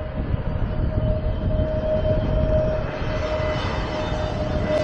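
Twin-engine jet airliner on final approach with its landing gear down, passing low: a steady engine whine over a low rumble that grows brighter and louder as the aircraft nears.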